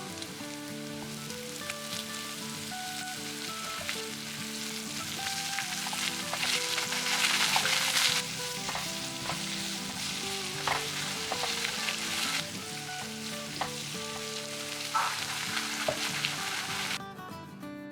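Potatoes cooking in a pot on the stove: a steady hiss and sizzle that swells about six to eight seconds in, with a few light clicks of a utensil. It cuts off suddenly about a second before the end.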